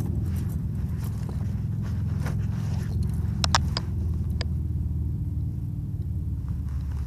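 A steady low rumble, with a few light metallic clinks about three and a half seconds in and once more a second later as metal gear clips knock together.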